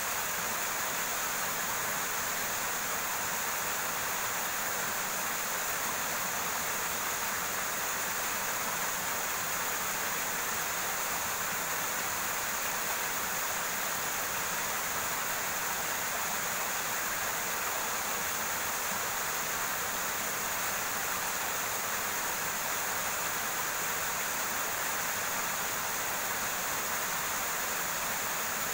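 River water rushing steadily over rocks, an even hiss with a fainter steady high-pitched band above it.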